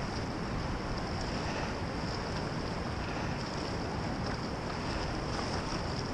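Steady wind noise on the microphone over the rushing of a fast-flowing, swollen river.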